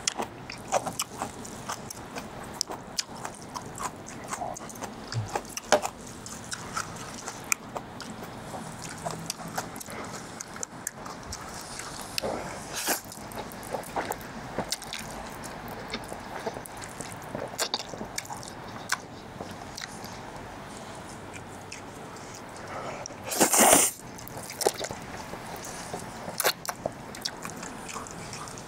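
Close-miked eating of Chapagetti noodles with chopsticks: wet chewing and lip-smacking clicks throughout, with one louder noodle slurp about three quarters of the way through.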